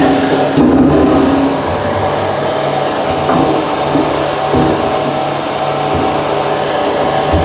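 Small engine running steadily at constant speed, typical of a portable generator, with a few light metal knocks from the spit rod being handled.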